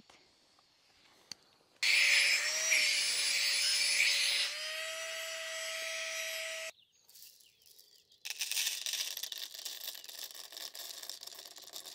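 Small electric air pump running to inflate a camping sleeping pad: a whirring motor with a steady hum that starts about two seconds in and steps up slightly in pitch partway through. It cuts off, then runs again, noisier, about a second and a half later.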